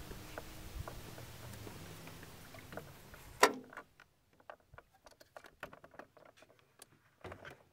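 Canoe gliding alongside a wooden dock with a soft, steady water wash, then a sharp knock about three and a half seconds in as the canoe is caught at the dock. After that the wash stops and only light scattered clicks and taps remain, with a small thump near the end.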